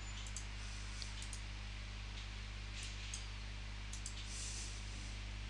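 A few scattered computer mouse clicks over a steady low electrical hum and hiss.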